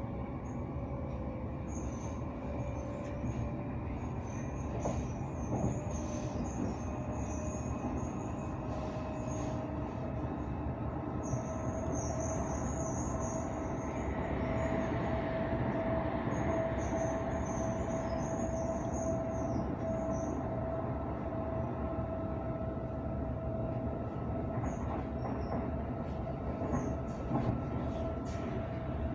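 A moving passenger train heard from inside the carriage: a steady rumble of wheels on rail with a whine that slowly rises in pitch. Now and then there is a high squeal and a few clicks.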